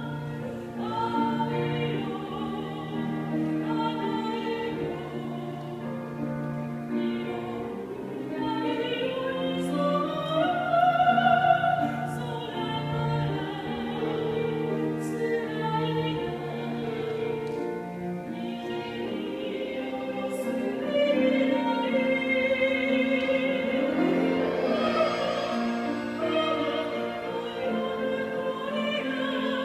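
A soprano sings a song in classical style with vibrato, accompanied by piano, violin and cello. A loud high passage comes about eleven seconds in.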